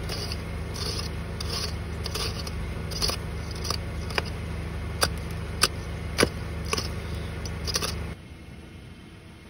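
A claw hammer scraping and chipping at packed ice and snow around a car tire in quick, regular strokes, with a few sharp knocks as the claw strikes ice, over a steady low hum. The strokes stop about eight seconds in.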